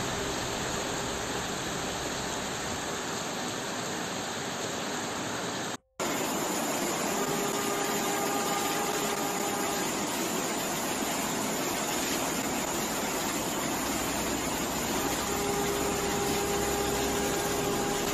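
Steady rushing noise of floodwater and rain. It cuts out abruptly for a moment about six seconds in and resumes, with a faint steady tone heard twice over it.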